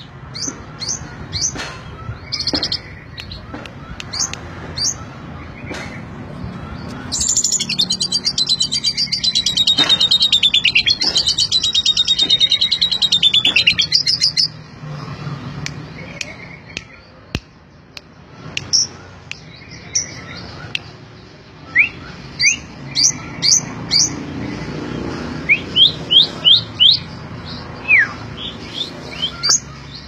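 Asian pied starling singing: scattered short whistled notes, then a loud, fast rattling chatter for about seven seconds in the middle, then a run of sharp rising whistles.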